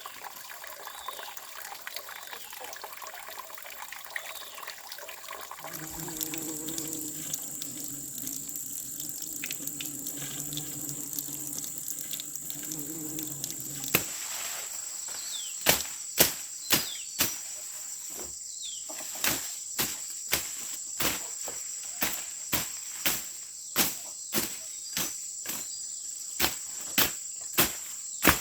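Crickets trilling steadily, with running water at first. From about halfway through, a hand tool strikes repeatedly, about one to two blows a second.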